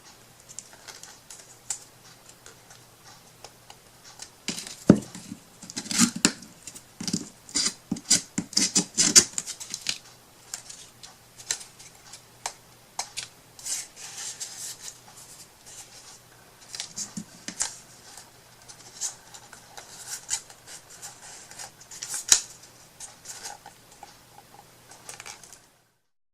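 Irregular small clicks, taps and scrapes of hands working with craft materials on a table, busiest for a few seconds early on and tapering into scattered taps, over a faint steady hum.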